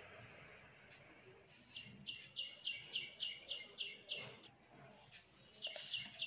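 A bird calling faintly: a rapid run of about ten short, high chirps at about four a second, a pause of about a second, then another run.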